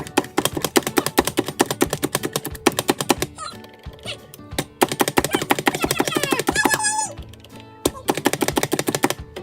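Pampered Chef plunger food chopper clacking rapidly, about ten strokes a second in three runs, as its blades chop zucchini. Background music plays underneath.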